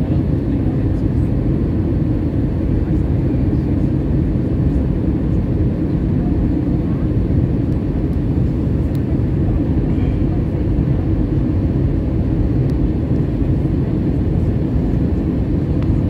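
Cabin noise of an Airbus A320 in flight on approach: a steady low rumble.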